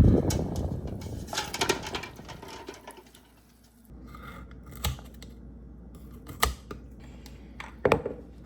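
Kitchen handling noises: a loud rustling clatter at the start, then a few separate sharp clicks and knocks about a second or more apart.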